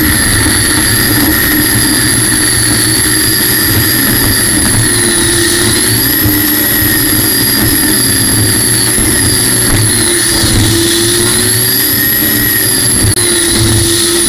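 A General Electric helicopter gas-turbine engine powering a racing jet boat under way, heard onboard. It gives a loud, steady, high-pitched whine over a continuous rushing noise. The whine's pitch dips and recovers a few times.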